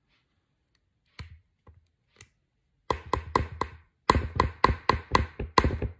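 A spoon tapping repeatedly against a container to knock out sour cream. A few light clicks come first, then just before the halfway point a run of quick, sharp taps begins, about four a second, each with a short ring.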